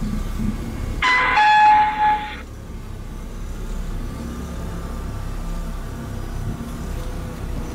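Low, steady engine and road rumble inside a slowly moving car's cabin. About a second in, a loud electronic chime sounds two notes, the second lower, for about a second and a half.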